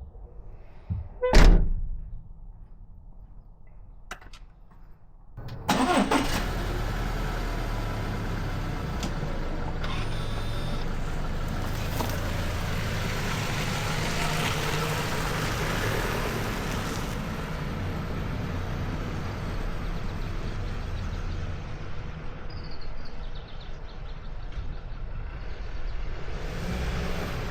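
A car door shuts with one sharp thud about a second in. A few seconds later the Subaru Levorg's flat-four engine starts with a sudden surge and keeps running steadily with a low rumble.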